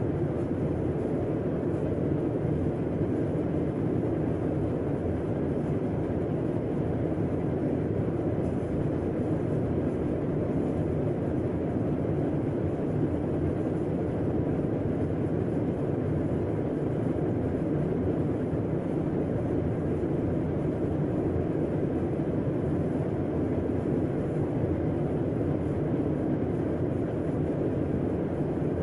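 Air conditioner running: a steady, unchanging low whooshing hum of fan and compressor, with most of its energy low to mid in pitch.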